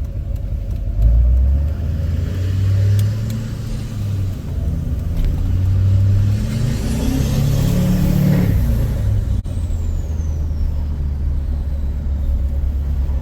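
A 2006 LBZ Duramax's 6.6-litre V8 turbo-diesel pulls, its pitch rising for a couple of seconds about halfway through, with a high whistle rising and falling over it. It then eases back to a steady cruising drone.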